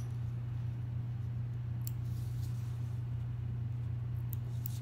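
Small scissors snipping notches into the edge of knit fabric: a few faint, short snips, one about two seconds in and two close together near the end. A steady low electrical hum runs under them and is the loudest sound.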